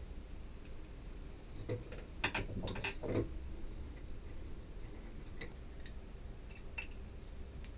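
Small metal clicks and knocks as the parts of a manual galley pump faucet are handled and fitted together, with a cluster of them about two to three seconds in and a few scattered ticks later.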